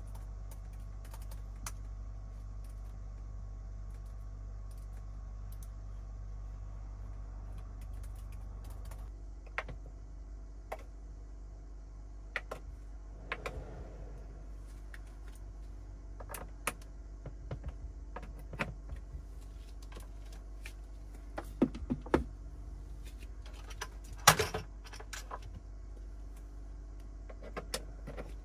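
Light clicking of typing on a laptop keyboard, then scattered clicks and knocks of charging cables being handled and plugged into the USB ports of a BLUETTI AC180 portable power station, the loudest a short cluster of knocks a few seconds before the end. A steady low hum runs underneath.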